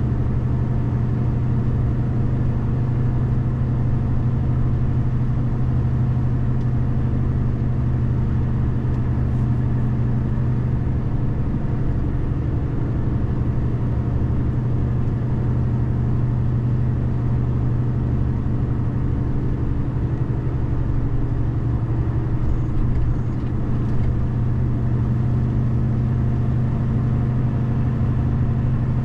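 Car being driven: steady engine and road noise, a constant low hum with a brief dip in level a little over three-quarters of the way through.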